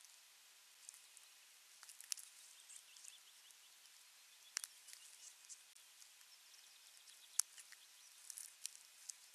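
Faint, scattered clicks and snaps of an osprey tearing at a fish on a nest of sticks, with the sharpest snaps about four and a half and seven and a half seconds in.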